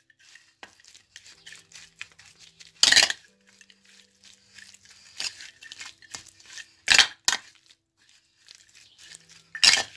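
Raw chicken being mixed with its marinade in a stainless-steel bowl: irregular stirring and scraping, with sharp metal clinks against the bowl. The loudest clinks come about three seconds in, twice close together around seven seconds, and near the end.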